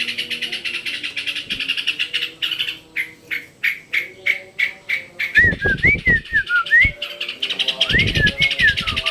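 A trucuk bulbul calling: first a fast run of short repeated notes, then loud phrases of bubbly, gliding whistled notes, twice, the second near the end.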